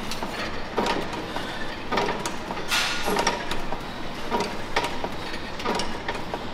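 Precor leg extension machine worked through reps: the weight stack and lever arm slide and clank in a repeating rhythm, a stroke about every second.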